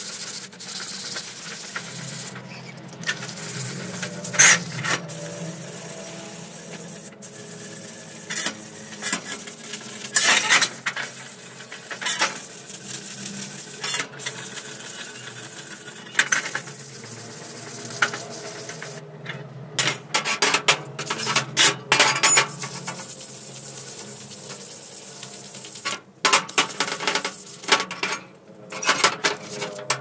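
Sandpaper rubbed by hand back and forth over a rusty steel strip from an old Royal typewriter, a steady scratchy hiss as the rust is sanded off. Sharp metallic clinks and clatter come in between, more often in the second half.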